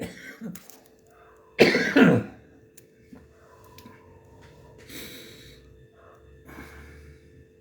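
A man coughs once to clear his throat, about a second and a half in. Otherwise only faint room noise with a steady low hum.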